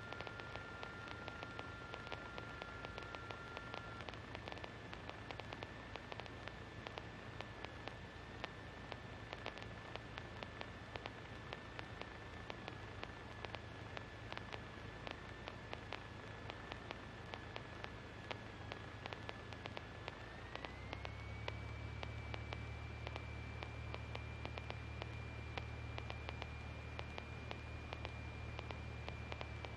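Faint hiss and constant crackle of a light aircraft's intercom and radio audio line, with a steady high electrical whine. About two-thirds of the way through, the whine steps up in pitch and a low hum grows louder.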